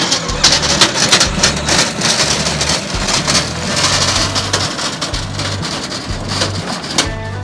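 Background music with a stepping bass line, under a loud, dense hiss with crackling that thins out near the end.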